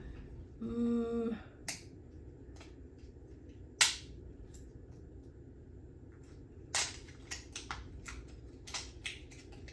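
Sharp clicks and taps of batteries and their packaging being handled, a few louder ones among many small ones. About a second in there is a brief hummed 'mm'.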